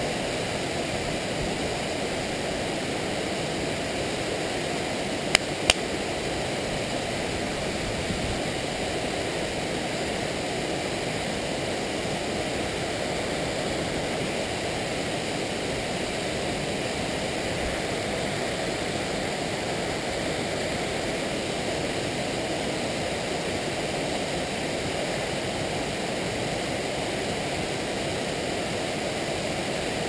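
Waterfall pouring steadily over a cliff: an even, unbroken rush of falling water. Two sharp clicks come close together about five seconds in.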